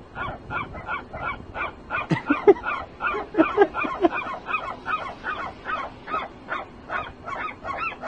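Gull giving rapid, repeated short harsh calls, about three or four a second without pause, while another gull grips its head to force it to give up a fish.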